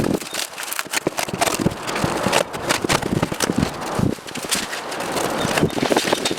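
Irregular scraping and clicking: many small sharp sounds in quick succession.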